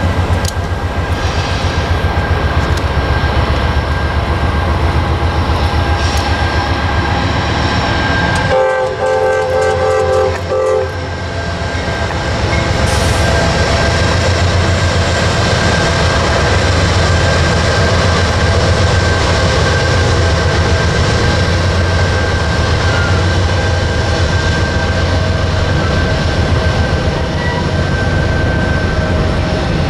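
Three Norfolk Southern GE AC44C6M diesel locomotives running with a deep, steady rumble as they cross a steel deck girder bridge, sounding one horn blast of about two seconds about nine seconds in. The freight cars then roll across the bridge behind them.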